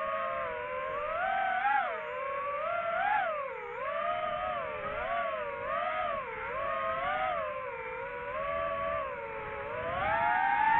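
DJI FPV drone's propeller whine, its pitch wavering up and down as the throttle changes. In the last second it climbs in pitch and grows louder as the drone powers up.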